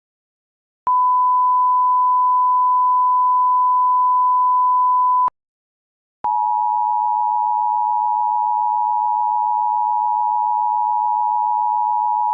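Emergency alert tones: a single steady pure tone for about four seconds, then after a second's pause the two-tone Emergency Alert System attention signal, two close notes sounding together, holding steady. Each tone starts and stops abruptly with a click.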